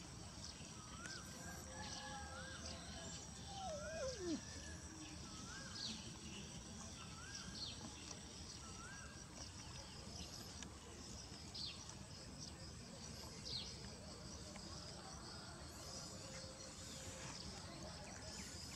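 Quiet outdoor ambience: a steady high insect drone with scattered quick bird chirps. In the first half there is a run of about seven short, evenly spaced calls, and one long falling cry about four seconds in.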